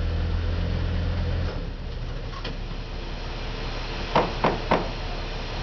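A wooden board knocks three times in quick succession against a sailboat's hull, about four seconds in.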